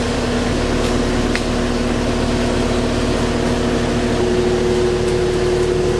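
A lifting machine's engine running steadily under load with a steady whine of several tones, shifting slightly about four seconds in, as it raises a heavy load.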